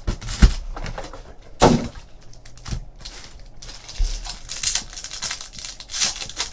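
Foil trading-card packs being handled and torn open, with crinkling wrapper. A couple of sharp knocks in the first two seconds are the card box and packs being knocked against the table.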